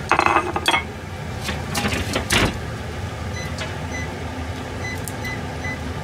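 Panasonic IH cooktop's fish-grill drawer rattling and knocking as it is handled and pushed shut, the loudest knock about two and a half seconds in. Then a series of short electronic beeps as the grill's control-panel buttons are pressed to set a 6-minute timer, with a low hum under them.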